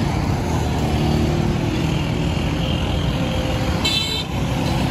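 Road traffic passing close by: motorcycle and car engines running in a steady rumble, with a short high-pitched ring about four seconds in.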